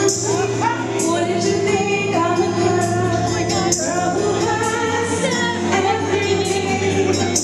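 A woman singing into a microphone over backing music with a steady beat.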